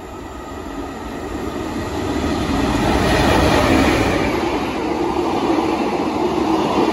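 SNCF BB 27300-class electric locomotive hauling VB2N double-deck coaches passes close by, a rumble of wheels on rail that grows louder over the first three seconds or so and then holds steady as the coaches roll past.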